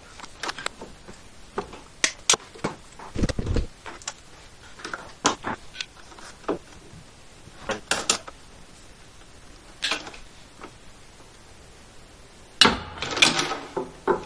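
Hand PEX crimping tool, pipe and brass fittings being handled and worked: scattered sharp clicks and knocks, a low thump about three seconds in, and a busier clatter near the end.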